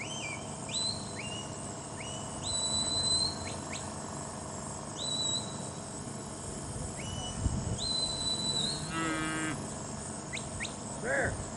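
A sheepdog handler's herding whistle commands to a working border collie: a series of about a dozen short, high whistles, most sweeping up and then holding a steady note, some long and some clipped, given to direct the dog around the cattle. A brief lower call is heard near the end.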